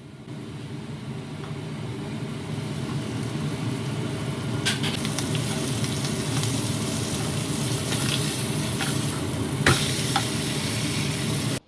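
Fish frying in hot oil: a steady sizzle that builds over the first few seconds, with a couple of sharp clicks about five and ten seconds in. It cuts off suddenly near the end.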